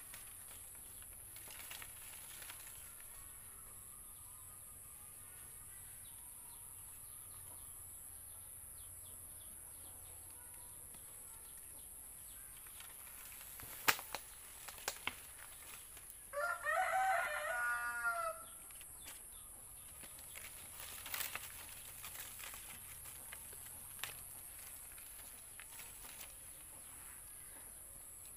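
A rooster crows once, a wavering call of about two seconds in the middle, over faint outdoor background with a few sharp clicks before and after it.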